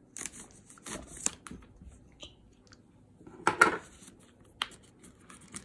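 Folding pocket knife slitting the plastic shrink-wrap on a Blu-ray box set: a scratchy cutting hiss with small clicks in the first second or so, then the film rustling as it is pulled loose. A louder knock about three and a half seconds in.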